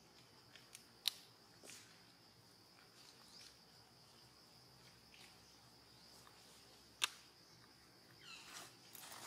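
Faint forest ambience: a steady high insect buzz, with two sharp clicks, about a second in and about seven seconds in, and a few short falling squeaks near the end.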